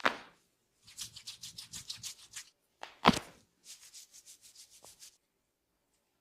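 Hands working over a head and skin in an Indian head massage. There is a sharp slap, then a quick run of rubbing strokes at about eight a second. About three seconds in comes a second, louder slap, followed by another run of strokes.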